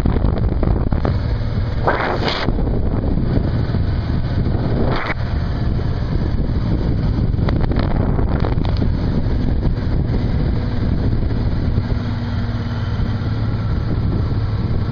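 Wind buffeting a microphone on a moving motorcycle at road speed, with the bike's engine humming underneath. Two louder gusts come about two and five seconds in.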